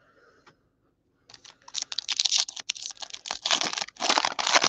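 Foil trading card pack wrapper crinkling and tearing as it is opened by hand, a dense crackle that starts about a second in and grows louder toward the end.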